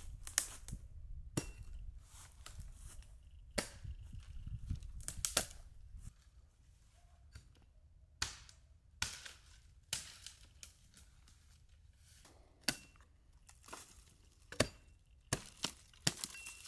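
Knife chopping on a cutting board: irregular sharp knocks, roughly one a second, with a low rumble under the first few seconds.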